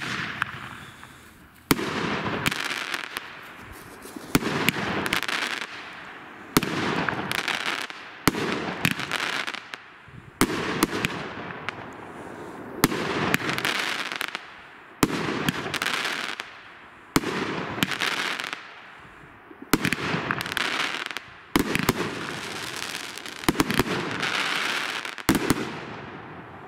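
Pyro Diablo 'Heroes' 500-gram, 21-shot firework cake firing shot after shot. There is a sharp bang roughly every one to two seconds, each trailed by a second or so of hissing, fading noise from the burst.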